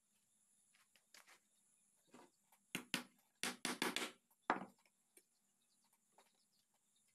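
Claw hammer knocking a wooden strip into place on a wooden door panel: a quick run of about half a dozen blows between about three and five seconds in.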